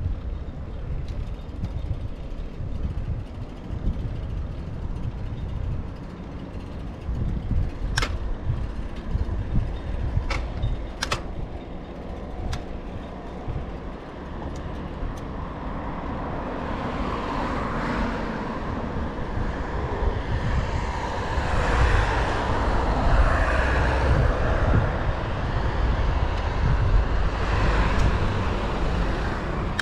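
Road traffic passing alongside a bicycle path: motor-vehicle noise builds up through the second half and is loudest near the end. Under it runs a low wind rumble on the action camera's microphone, and a few sharp clicks come about a third of the way in.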